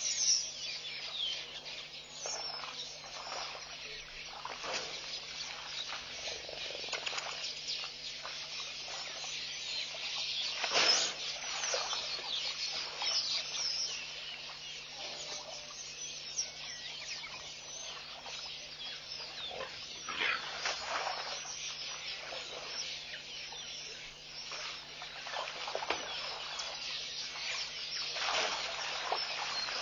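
African elephant wallowing in a muddy waterhole: wet sloshing, slapping and squelching of mud and water as it moves its feet and trunk, loudest about 11 seconds in and again near 20 and 28 seconds. A steady low hum runs underneath.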